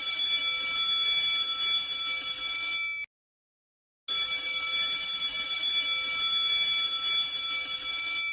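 Electric school bell ringing: one long ring stops about three seconds in, and a second long ring starts a second later and runs about four seconds, signalling the end of a lesson.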